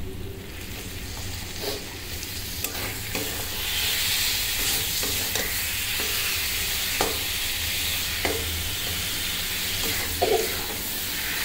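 Onion-spice masala frying and sizzling in a steel kadhai as raw chicken pieces go in, stirred with a metal spatula that clinks and scrapes against the pan every second or so. The sizzle grows louder about four seconds in.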